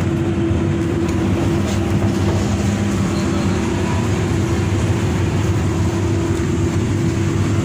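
Diesel engine of a Hino RK8 R235 coach and its road noise, heard from inside the cabin while the bus travels: a steady drone with a constant low hum.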